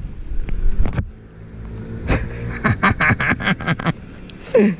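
Single-cylinder engine of a Honda PCX scooter with a stage-1 tuned CVT, accelerating toward the listener at a steady engine note. Wind buffets the microphone in the first second.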